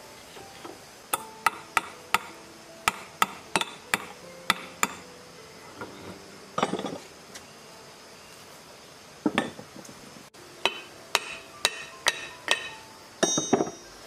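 Sharp, irregular metal clinks and knocks, some ringing briefly, from tools and parts being worked while an old rusty submersible water pump is taken apart, with a few short scraping rattles.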